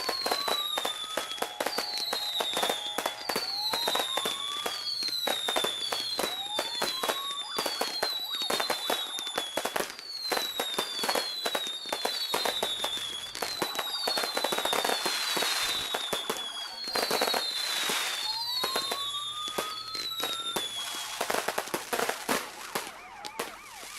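Fireworks crackling and popping without a break, with short high whistles falling in pitch about once a second and a lower rising whistle every few seconds.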